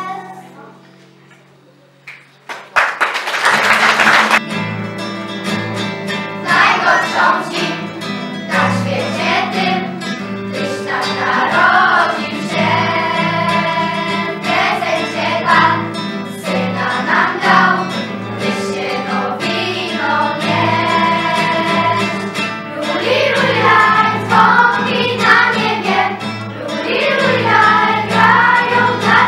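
Children's choir singing a Christmas song with instrumental accompaniment. After a brief lull, the music starts about three seconds in with a short, loud noisy burst, then the voices come in over a steady bass line.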